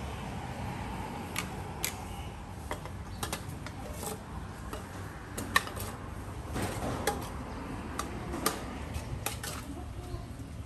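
Irregular light clicks and taps of kitchen utensils against bowls and containers during salad preparation, the sharpest about five and a half seconds in, over a low steady background rumble.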